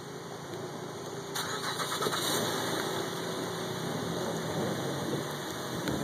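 A car engine starts about a second and a half in, then runs steadily at idle.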